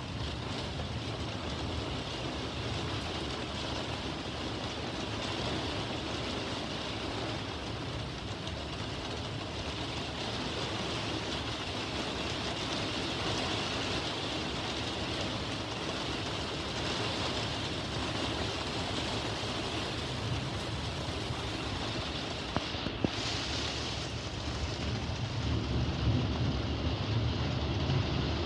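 Steady heavy rain and wind of a severe thunderstorm, with a low rumble of thunder building near the end.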